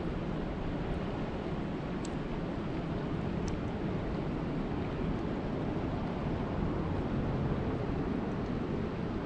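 Steady rain sound effect: an even rushing noise, heaviest in the low end, with a few faint high ticks.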